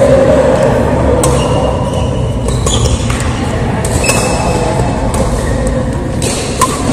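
A badminton rally in a large hall: several sharp racket strikes on the shuttlecock a second or two apart, with short high squeaks from shoes on the court mat, over steady hall noise.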